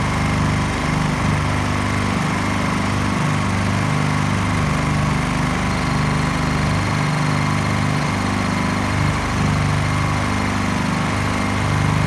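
Two Honda EU2000 inverter generators, each with a small single-cylinder four-stroke engine, running close by: a steady engine hum that wavers slightly in pitch throughout.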